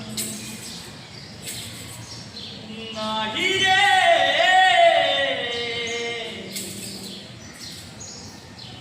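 A Vasudev, a Marathi folk devotional singer, singing one long wavering phrase in a man's voice, loudest from about three to five and a half seconds in, with a few sharp clicks around it.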